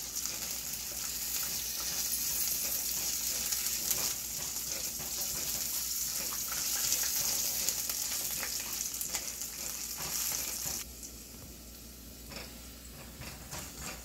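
Urad dal, garlic and chillies sizzling in hot oil in a stainless steel pan, roasting towards reddish-brown, with a silicone spatula stirring and scraping through them. The sizzle drops suddenly to a quieter level about three-quarters of the way through.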